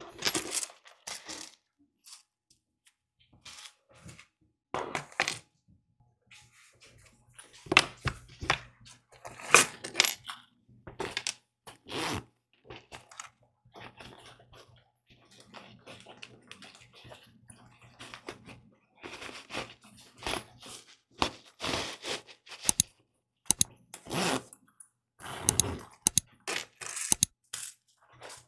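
Irregular rustling, scraping and light knocks as mesh zip pouches are handled and pushed into a nylon backpack, with small metal clinks from zipper pulls.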